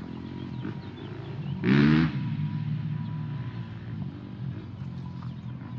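Small dirt bike engine running in the distance, with one loud rising rev about two seconds in that then eases back to a steady run.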